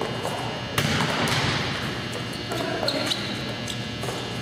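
A volleyball struck hard with a sharp smack about a second in, echoing through a large gym, followed by the ball bouncing on the floor.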